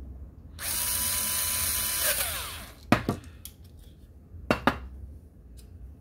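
Black+Decker cordless screwdriver running steadily for about a second and a half on a screw in a hard drive's metal mounting bracket, its whine falling in pitch as the motor stops. Two sharp clicks follow, about a second and a half apart.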